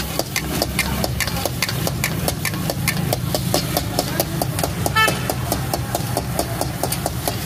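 Metal spatulas scraping and clacking against a steel karahi wok as thick chicken curry is stirred fast, about four strokes a second, over a steady low rumble. A brief ringing tone sounds about five seconds in.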